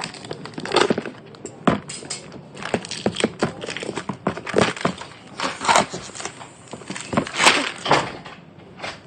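A plastic-wrapped package being handled and cut open with scissors: irregular crinkling and snipping.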